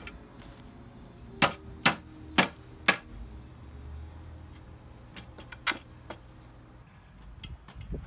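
Four sharp knocks about half a second apart, then two more a few seconds later, over a low steady background.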